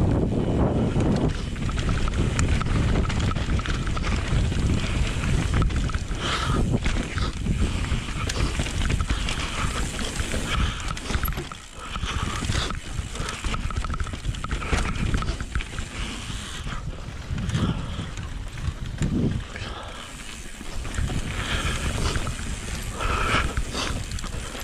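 Mountain bike descending a loose gravel and dirt trail: wind buffeting the microphone over the sound of tyres rolling and the bike rattling on the stones.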